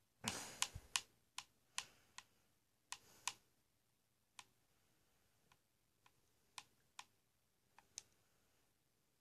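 Scattered sharp clicks, about fifteen in all: quick and close together for the first three seconds or so, then single clicks a second or more apart, over a near-silent background.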